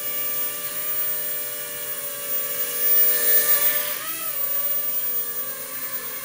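JJ1000 toy quadcopter's small electric motors and propellers whirring in a steady whine, hovering low on little throttle. About four seconds in, the pitch wavers and shifts as the motor speeds change.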